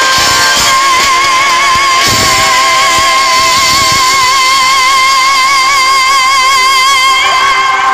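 Female pop singer holding one long high note with even vibrato over the band's accompaniment; the note starts about a second in and ends shortly before the end.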